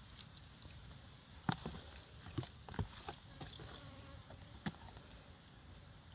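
A steady high-pitched insect drone in the background, with a handful of short taps and rustles from hands handling food and a banana leaf; the sharpest taps come about a second and a half in, around two and a half to three seconds in, and near the end.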